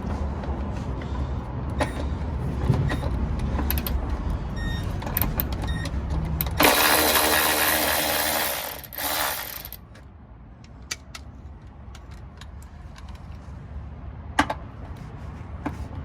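Tools working on rusted exhaust fasteners: scattered metallic clicks and ratcheting, with a power tool running loudly for about three seconds in the middle.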